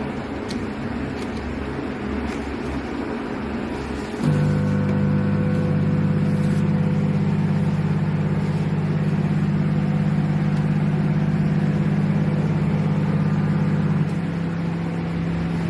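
Khind MW2001 20-litre microwave oven running: a steady whirring hum, and then about four seconds in a louder, deeper steady hum sets in. The hum eases slightly near the end.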